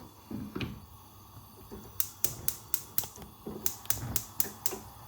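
A quick run of sharp clicks or taps, about four a second, in two runs of five or six.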